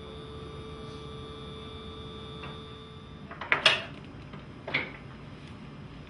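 Fittings on a surgical operating table clicking and knocking a few times, with two loud knocks about three and a half and four and a half seconds in. A steady hum stops just before the knocks begin.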